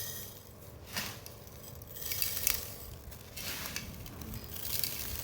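Mixed dried lentils being poured into a storage jar: a rattle of hard grains with a few sharp clinks against the jar.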